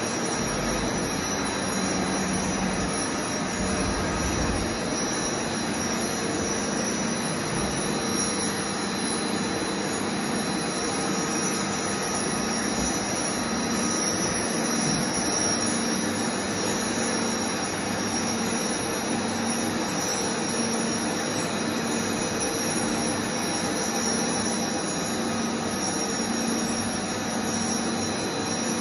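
Auerbach AX7-M deep drilling and milling machine running, a steady mechanical whine with several constant tones and no pauses.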